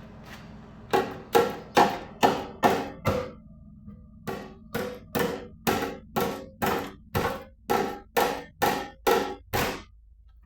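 Hammer striking metal in a steady run of about twenty blows, a little over two a second, each with a short ring, and a brief pause about three seconds in.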